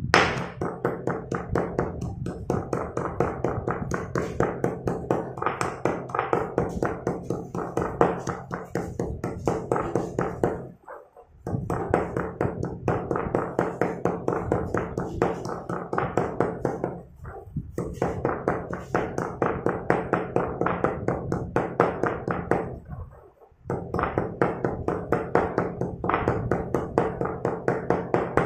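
Stone pestle pounding broken slate pencils into powder in a stone mortar: quick, even thuds about four or five a second, in long runs that stop briefly three times.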